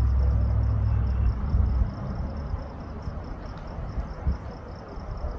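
Crickets chirping in a steady high pulse. A loud low rumble on the microphone fills the first two seconds, then drops away sharply.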